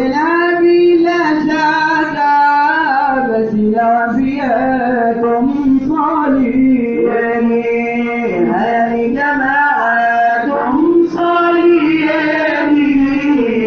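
Men and boys singing a Swahili qaswida, a devotional song in praise of the Prophet, in one melodic line with long held, ornamented notes.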